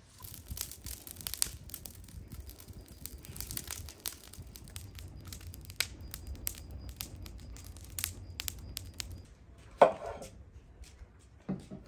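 Dense, irregular crackling and crunching made of many sharp clicks over a low rumble, stopping about nine seconds in, followed by a short vocal sound.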